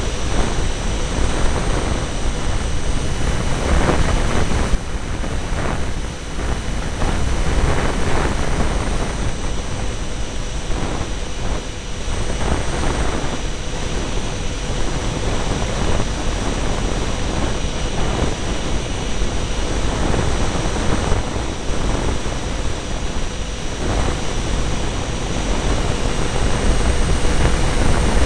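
Wind rushing and buffeting over the microphone of a camera riding on a radio-controlled F-22 model jet in flight, with the steady whine of its two 70 mm electric ducted fans underneath.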